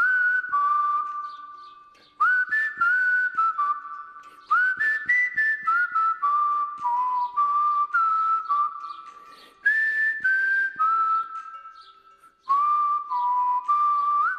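A whistled melody in short phrases, each starting sharply with a slight upward scoop and stepping down in pitch, over light tapping percussion, as outro music.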